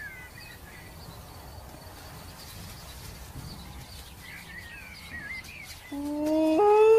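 Quiet forest ambience with a few short bird chirps, then about six seconds in a long wolf-like howl starts low, jumps up in pitch and is held steady, much louder than the background.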